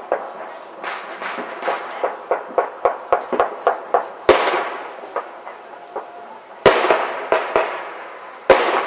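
Firecrackers and fireworks going off around a neighborhood: a rapid string of sharp pops, then three louder echoing bangs spread through the second half.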